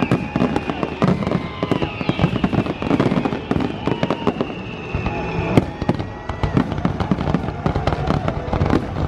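A fireworks show going off in rapid, overlapping bangs and crackles, with a sharper bang about halfway through and music playing underneath.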